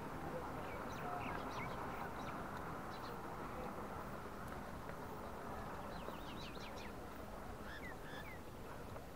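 Wind rushing over the microphone, with birds calling in short high chirps, a flurry of them around six to eight seconds in.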